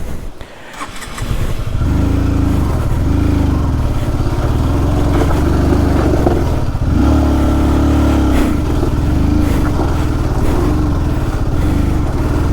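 Honda CBR150R's single-cylinder four-stroke engine coming in about a second and a half in, then revved up and down again and again, with one longer held rev near the middle. The bike is struggling to climb a loose rocky track, its rear tyre spinning.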